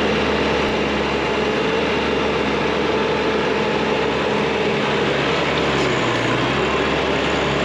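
Honda Foreman 450 ATV engine running steadily, its pitch shifting a little near the end.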